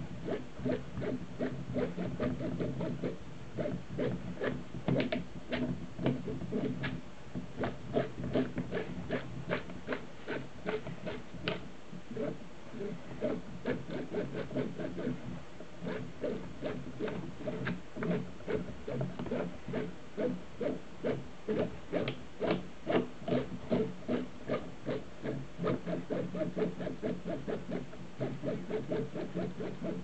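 Belt-driven linear-rail carriage worked by hand through its toothed belt and pulley, giving a run of sharp, irregular clicks, about three a second, as the carriages and magnet-held tool blocks move along the rail. A steady low hum runs underneath.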